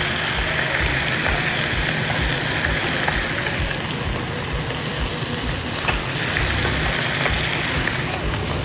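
Fish fillets with onion and tomato slices frying in margarine in a skillet: a steady sizzle with scattered small crackles.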